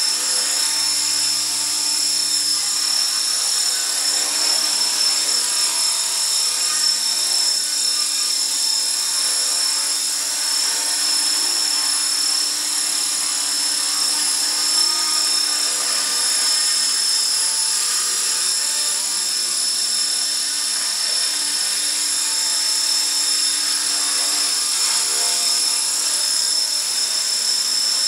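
HK450 electric 450-size RC helicopter running in hover: its brushless motor and gears give a steady, high-pitched whine that holds its pitch, with the spinning rotors under it.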